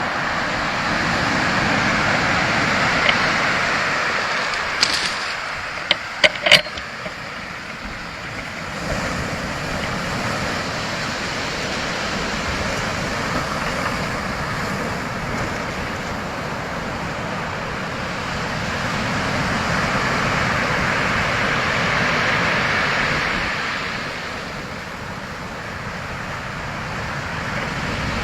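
Ocean waves washing ashore: a steady rush of surf that slowly swells and fades over many seconds. A few sharp clicks come about six seconds in.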